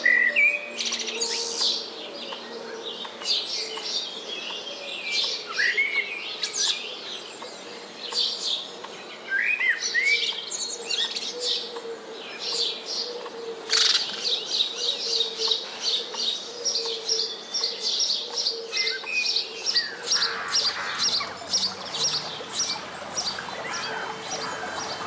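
Several songbirds singing outdoors: varied chirps and whistled phrases, with a fast run of repeated high notes in the middle. A faint steady low tone runs underneath.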